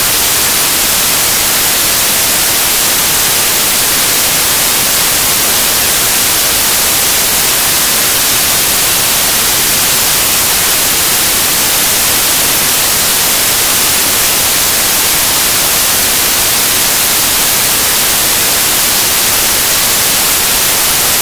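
Loud, perfectly steady static hiss with no rhythm or changes, strongest in the high end, as from an audio recording fault rather than the workshop; it cuts off abruptly to silence at the end.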